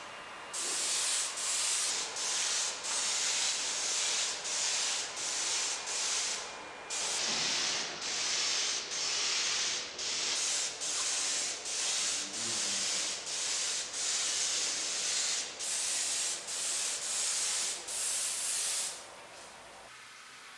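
Paint spray gun hissing in short repeated bursts, about one a second, as paint is sprayed on in passes; the spraying stops near the end.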